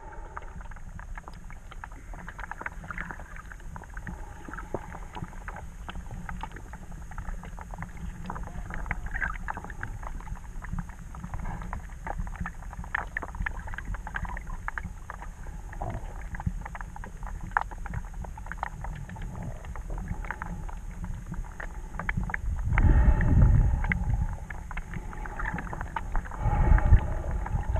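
Underwater sound picked up through a GoPro's waterproof housing: a steady muffled low rumble with a scatter of sharp clicks, and two louder stretches of rumbling near the end.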